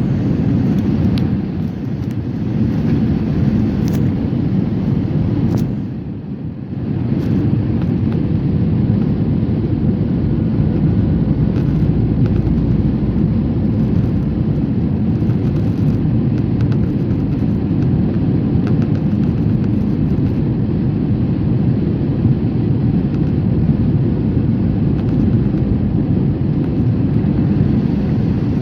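Steady low rumble of airliner cabin noise in flight, engine and airflow, with a brief drop in level about six seconds in.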